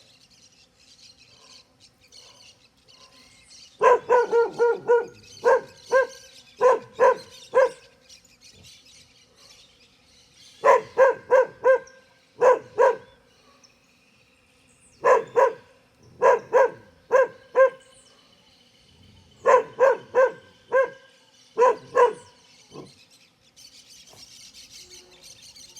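A dog barking in four bouts of quick, sharp barks, several barks to a second, with pauses of a couple of seconds between the bouts.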